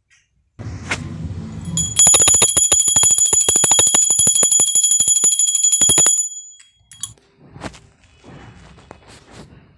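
Small brass puja hand bell rung rapidly for about four seconds over the food offering, with a steady high ringing over the fast strikes. It cuts off, and a few light knocks of handling follow.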